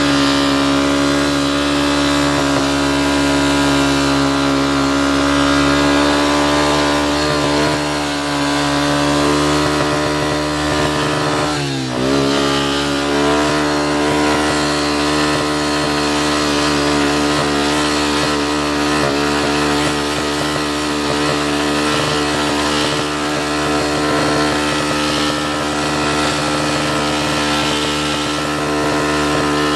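ATV engine running steadily under way. About twelve seconds in, its pitch dips briefly and climbs back up.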